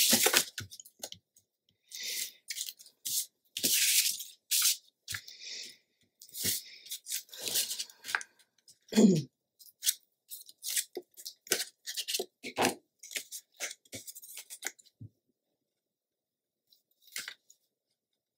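Adhesive tape and cardstock being handled while a paper pocket is taped onto a scrapbook page: a run of short rustles, scrapes and tearing noises that stops about 15 seconds in.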